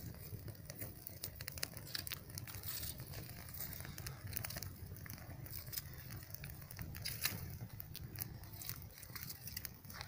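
Small kindling fire of dry twigs crackling, with irregular sharp pops and snaps as the twigs catch, over a low steady rumble.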